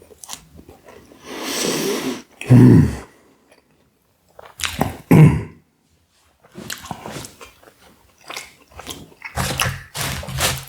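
Close-up mukbang eating sounds: a man chewing, with wet mouth clicks from about six seconds on. Earlier comes a breathy rush, then two short, loud throat noises about two and a half and five seconds in.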